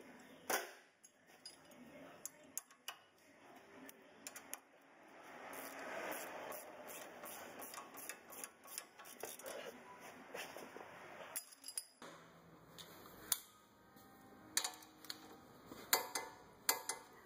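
Hand ratchet clicking in short runs, with scattered metal tool clinks, while tightening the front lower ball joint stud nut, the stud held from turning by an 8 mm Allen key.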